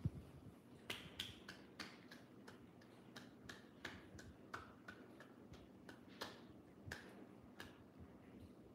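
A person snapping their fingers: a run of about fifteen sharp snaps at an uneven pace of roughly two a second. The snaps start about a second in and stop near the end.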